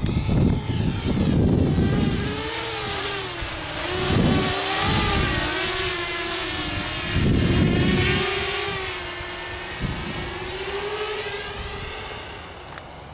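Walkera F210 racing quadcopter's brushless motors and propellers whining in flight, the pitch rising and falling with the throttle, with several short low rumbling bursts; the sound fades near the end.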